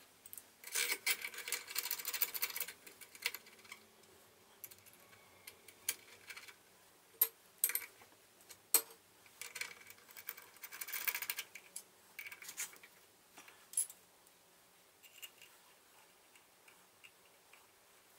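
Small metal parts handled and fitted by hand: scattered light metallic clicks and ticks, with two stretches of rapid fine clicking and rubbing, about a second in and again around ten seconds in.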